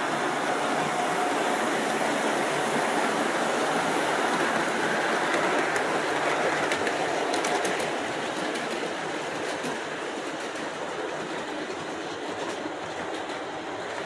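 O-scale model passenger train rolling past on its track, a steady rumble with scattered clicks from the wheels. The sound drops in loudness about eight seconds in as the lead locomotives move off and the cars follow.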